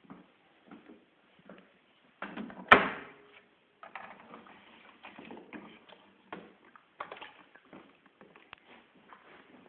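Laundry being pulled out of a front-loading washing machine's drum: rustling and small handling knocks, with one loud, sharp clunk nearly three seconds in.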